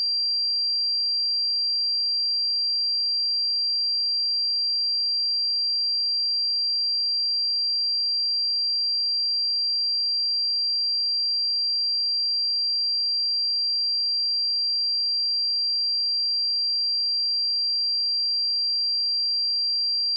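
A steady, unbroken 4734 Hz sine-wave test tone: a single pure high-pitched whistle-like tone at constant loudness.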